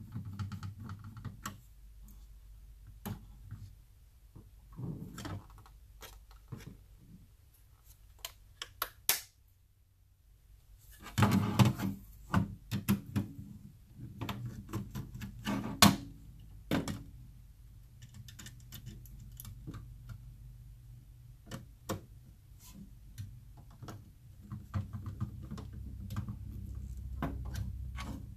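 Scattered clicks, taps and short rattles of hand work on metal electronics: a screwdriver turning the screw terminals of a 12 V switching power supply module and its perforated metal case being handled as the wires are disconnected. The busiest, loudest clatter comes a little before the midpoint, with a sharp click soon after.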